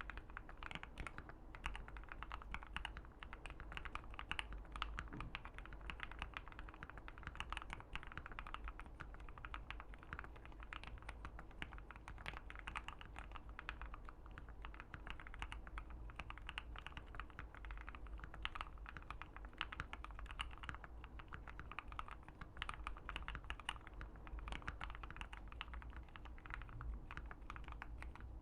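Steady, fast typing on a Keychron Q1 mechanical keyboard with an FR4 plate and Banana Split linear switches, keystrokes following each other closely without pause.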